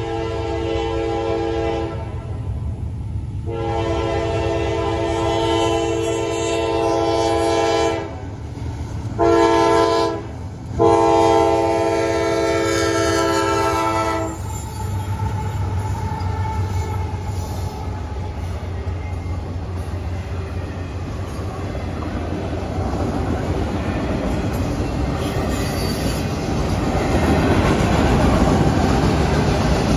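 CSX freight locomotive's multi-chime air horn sounding the grade-crossing signal: a long blast that ends about two seconds in, another long blast, a short one, and a final long blast that stops as the locomotive reaches the crossing. Then the locomotive's diesel engine rumbles past and the autorack cars' wheels click over the rail joints, growing louder near the end.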